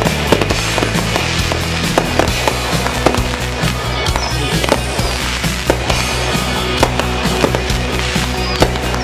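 Music with a sustained bass line that shifts about two seconds in, with many sharp, irregular cracks over it.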